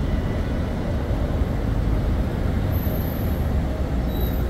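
Steady city street traffic noise: a low, even rumble of cars driving past on the avenue.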